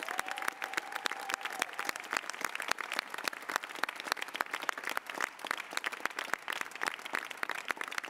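Large audience applauding with dense, steady clapping. A single held tone sounds for about two seconds at the start.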